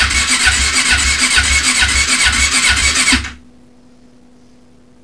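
1996 Honda CB500's parallel-twin engine cranked over on its electric starter with no fuel in it, turning with a beat from the compression strokes, a bit of a gallop, but not firing. The starter stops about three seconds in.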